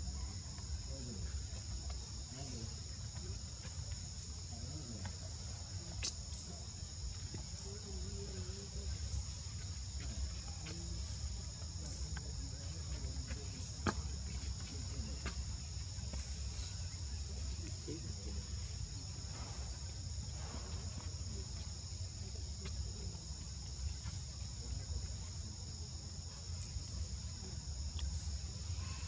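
Steady high-pitched buzz of an insect chorus, held on two pitches without a break, over a low rumble and a few faint clicks.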